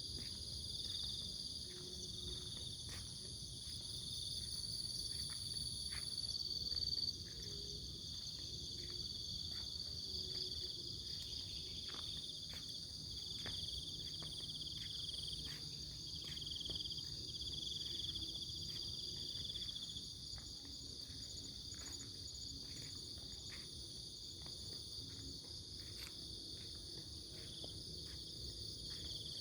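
Chorus of crickets chirring steadily at several high pitches, one voice dropping out about six seconds in, over a low steady rush.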